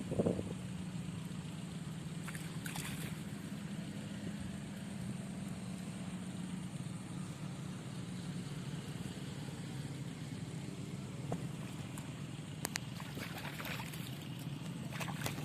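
A steady low motor hum, with a few brief rustles and clicks, about three seconds in and again near the end.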